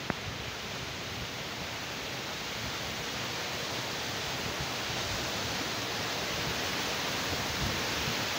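A small rocky mountain stream rushing and splashing over stones, a steady water noise that grows gradually louder. A single brief click sounds right at the start.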